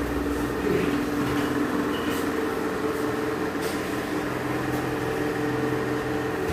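A loud, steady mechanical hum with two held tones, unchanging throughout.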